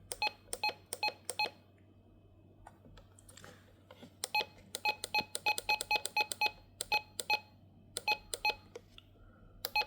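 Short electronic key beeps from a RadioShack 12-261 weather alert radio as its buttons are pressed over and over to set the clock. There are a few beeps at the start, then a quick run of about four a second from about four to seven seconds in, then a few more near the end.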